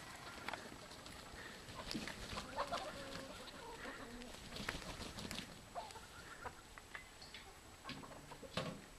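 Flock of domestic chickens clucking in short, scattered calls, with a few light knocks.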